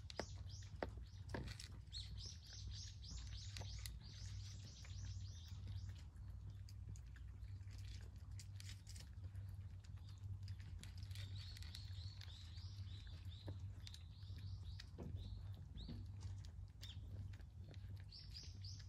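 Small birds chirping in quick runs of short notes, in several spells, with the soft clicks of a cat eating from a bowl and a steady low hum underneath.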